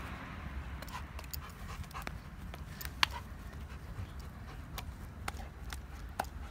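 A Dogo Argentino panting, with scattered short clicks and taps.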